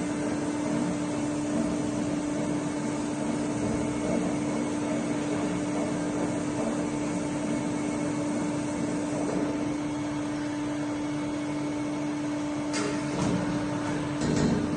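Correa A30/50 CNC bed milling machine running with a steady hum and one steady tone, and a few short clicks and hisses near the end.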